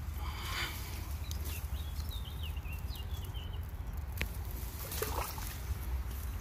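Water splashing and sloshing as a crucian carp is released from a landing net into shallow reedy water, with splashes near the start and again about five seconds in. Wind rumbles on the microphone throughout.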